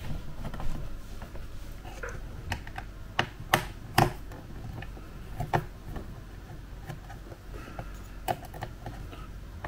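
Scattered light clicks and taps of a small Phillips screwdriver turning screws out of a laptop's metal bottom case, with the loudest two sharp clicks about halfway through.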